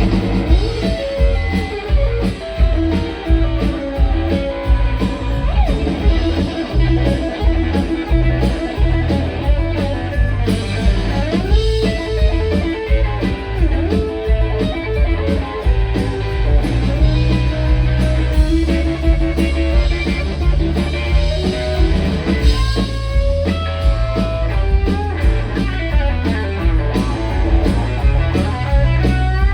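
Live band playing an instrumental break in a blues-rock song: a lead electric guitar with bent notes over bass and a steady drum beat.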